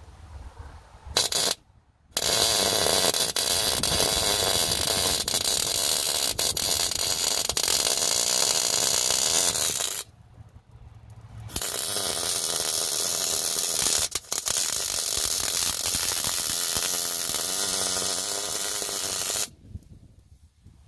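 Electric arc welder crackling and sizzling as a bolt is welded onto a broken bolt stub to get it out: a brief strike just after the start, then two long runs of about eight seconds each, with a pause between them.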